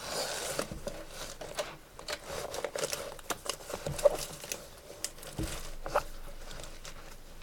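Rustling with scattered light clicks and taps: a set of pencils being handled and packed into a large fabric pencil case.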